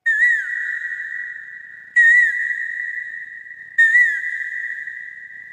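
A high whistled note sounding three times, about two seconds apart. Each note starts with a quick dip and wobble in pitch, then is held steady and slowly fades.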